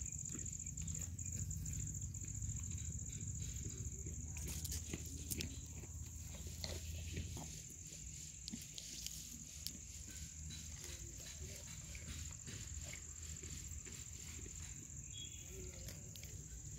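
Insects chirring in one steady high-pitched tone over a low steady rumble, with light rustling and clicks of dry grass close by about four to seven seconds in.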